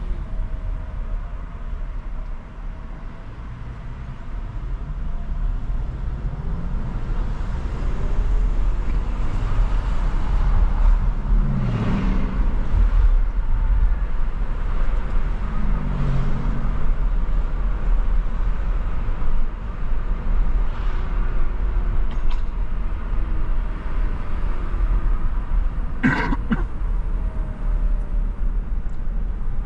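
Car driving through city traffic: a steady low road rumble with engine sounds rising and falling, and a short sharp clatter with a ringing tone near the end.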